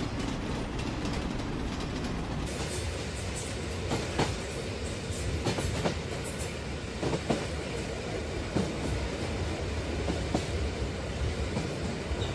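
Freight train of container wagons rolling past close by: a steady rumble with irregular sharp clacks as the wheels cross the rail joints.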